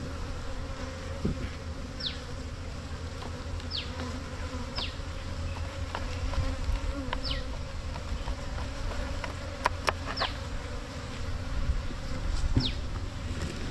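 Honey bees buzzing in a steady low drone around a cut wild honeycomb, with short high falling whistles every second or two and a couple of sharp clicks about ten seconds in.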